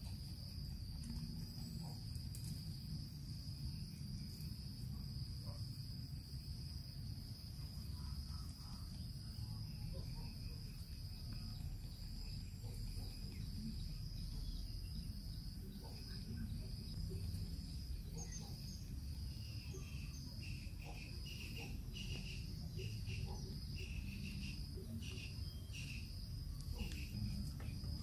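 Forest insects trilling: one steady high-pitched trill throughout, with a second, lower, pulsing chirp joining about two-thirds of the way in, over a low rumble and faint scattered knocks and rustles of handling sticks and stones.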